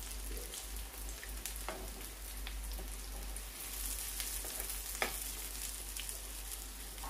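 Oil sizzling steadily around chicken shami kebabs shallow-frying in a pan. A few sharper clicks come from the slotted metal spatula touching the pan, the clearest about five seconds in.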